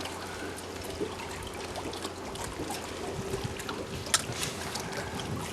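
Water lapping and trickling around a boat, with a few sharp clicks, the loudest about four seconds in.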